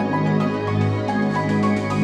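Electronic background music with held chords and a light, steady ticking beat.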